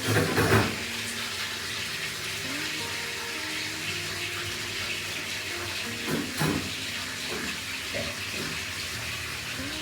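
Water running steadily, as from a tap, with a few short knocks and clatters.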